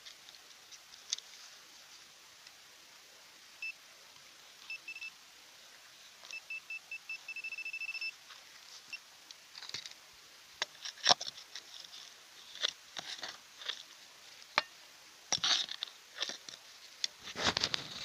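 A metal detector beeps at one high pitch, starting about four seconds in with a few short beeps. The beeps come faster and faster until they are nearly continuous around eight seconds in, which signals a metal target close under the coil. For the rest of the time there are irregular sharp knocks and scrapes.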